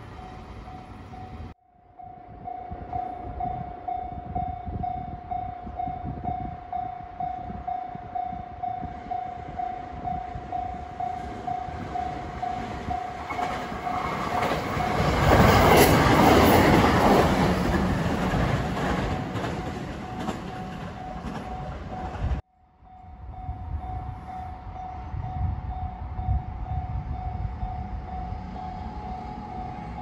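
Level-crossing alarm ringing in steady repeated dings while a two-car 521 series electric train approaches and runs past, its wheel and track noise growing to the loudest point about halfway through and then fading. After a cut near the end the crossing alarm is ringing again.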